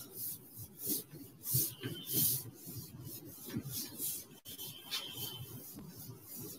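Chalkboard duster wiping chalk off a blackboard in repeated rubbing strokes, about one or two a second.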